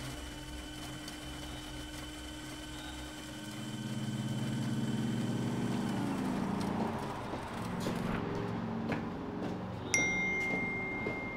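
Sustained, layered electronic drone tones that swell about three and a half seconds in. Near the end a sudden high, steady tone comes in on top.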